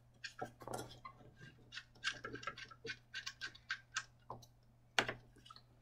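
Small irregular clicks and scrapes of an M12 cable connector being threaded onto the plastic housing of a SICK safeRS radar sensor head, with a sharper click about five seconds in.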